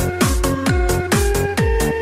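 Electronic dance music: a steady kick drum about twice a second under held synth chords.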